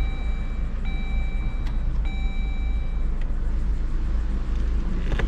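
Dodge Journey idling with a steady low rumble after being switched on, while an electronic tone sounds three times, each beep held about a second, over the first three seconds.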